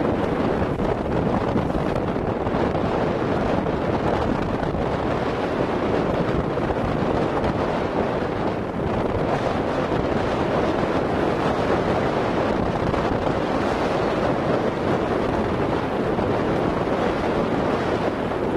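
Strong wind of about 25–30 knots buffeting the microphone in a steady, loud rush, with the wash of choppy, whitecapped waves beneath it.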